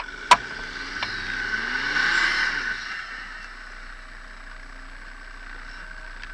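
Off-road SUV engine revving up and easing back once, loudest about two seconds in, then running steadily as a Jeep Grand Cherokee is pulled out on a tow rope. A steady high whine runs underneath, and there is one sharp click just after the start.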